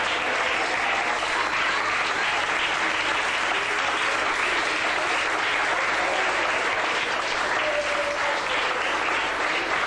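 Audience applauding steadily, a dense clapping that keeps up without a break.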